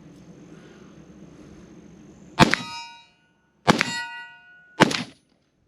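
Three single shots from a 5.45×39 PSA AK-105, about a second apart, each followed by a ringing clang from a steel target being hit.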